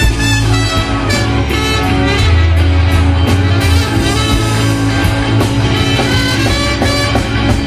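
Live blues-rock band jamming: a horn section of trumpet, trombone and saxophone playing over bass guitar and drums.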